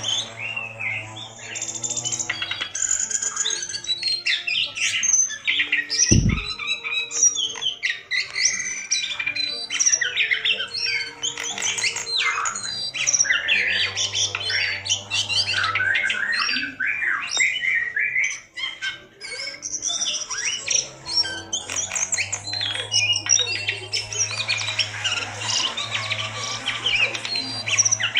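A caged jongkangan singing a fast, unbroken string of varied chirps, squawks and trills. A low thump comes about six seconds in.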